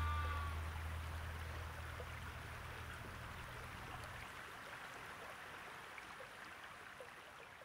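Faint, steady rush of a flowing river or stream, slowly fading out. A low music drone fades away beneath it over the first few seconds, and a brief high chirp sounds just after the start.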